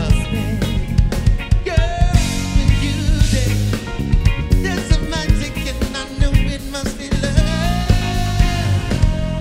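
Live band playing an upbeat rock song with drum kit, bass and keyboard, and a voice singing the melody over it.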